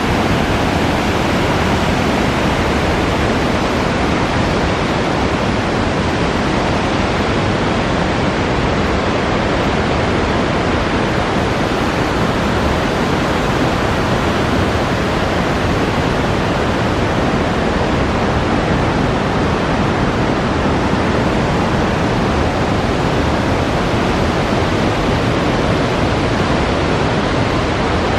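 Whitewater of the Spokane River pouring over a dam spillway and churning through rapids: a loud, steady rush of water that does not let up.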